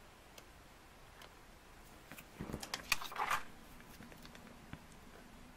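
Handling noise of a small keychain photo album as a paper card is slipped into one of its pages: faint rustling, then a short cluster of clicks and rustles with a soft knock about two and a half seconds in.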